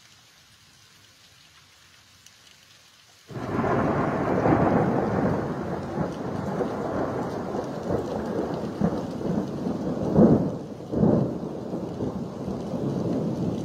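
Rain hissing faintly. About three seconds in, thunder from a strong lightning strike breaks in suddenly and rumbles on loudly, swelling twice more near the end.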